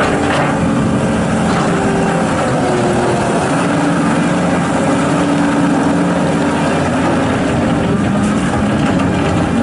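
John Deere 331G rubber-track skid steer loader working, its diesel engine running steadily at working speed with its pitch wandering a little. There is a brief knock or clank just at the start.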